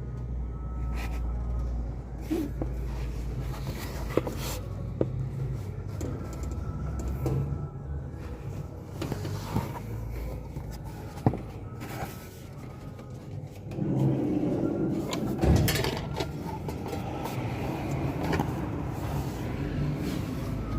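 Car running with a steady low hum, with scattered short clicks and knocks throughout and a louder, busier stretch about two-thirds of the way through.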